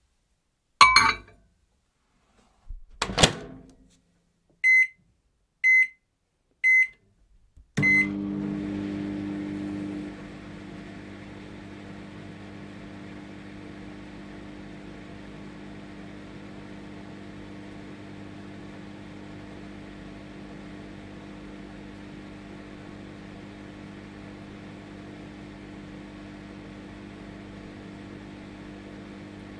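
Microwave oven: two clunks from the door, then four short high keypad beeps about a second apart, then the oven starts running with a steady electric hum, a little louder for its first two seconds before settling.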